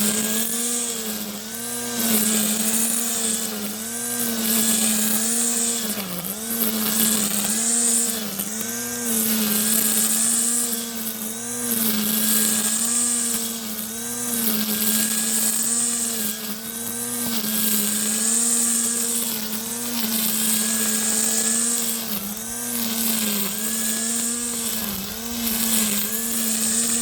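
Parkside 40V cordless multi-tool's brushless motor running its lawn trimmer attachment through grass: a steady high whine that sags briefly under load, with a swishing cut swelling about once every two seconds as it sweeps back and forth.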